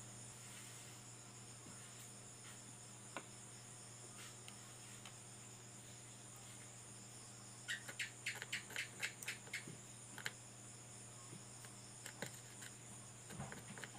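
Crickets chirping steadily over a faint low electrical hum. A quick run of light clicks and taps comes about eight seconds in, with a few single clicks elsewhere.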